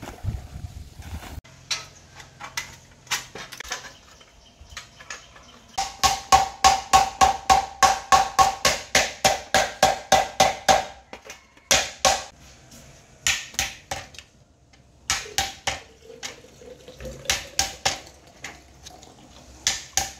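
Steel hammer striking a nail through thin sheet tin on a wooden block, punching holes to make a homemade grater. A fast run of ringing metallic blows, about three a second, then shorter groups of strikes with pauses between.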